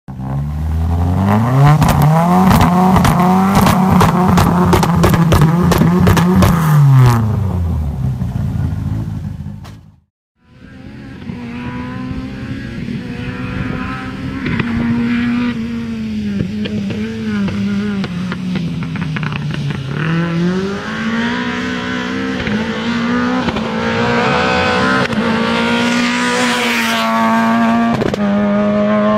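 Rally car engine revved hard: the pitch climbs, holds high with sharp crackles for several seconds, then drops away. After a brief cut, a car engine is driven hard, its revs rising and falling again and again.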